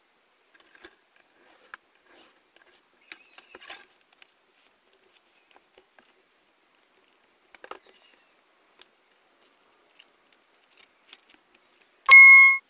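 Faint taps, clicks and rustles of paper and card being handled as a paper shadow box is fitted together, then near the end a loud, short beep at a steady pitch lasting about half a second.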